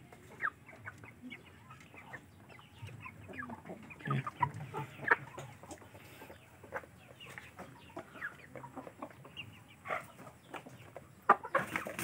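Aseel-type chickens clucking quietly, a scatter of short separate clucks and calls with a few small clicks between them.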